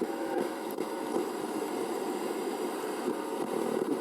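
Roberts Revival R250 radio's speaker giving out a steady static hiss with faint crackle, with no station tuned in.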